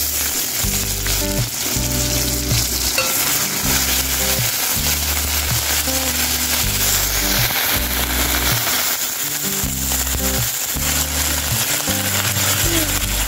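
Ginger paste sizzling in hot oil with panch phoron and green chillies in a metal kadai, a spatula stirring and scraping it around the pan. The sizzle is a steady hiss.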